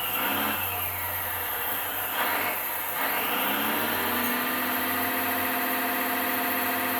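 1/14 scale RC hydraulic excavator working its stick and bucket: the electric hydraulic pump whines over a constant hiss, and the sound module's simulated engine rises and falls in step with the hydraulic functions. The pitch drops in the first second, climbs again about three seconds in, then holds steady.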